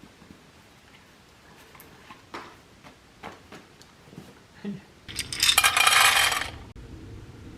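A few light clicks, then a loud, dense rattling clatter of small hard objects lasting about a second and a half, which cuts off abruptly.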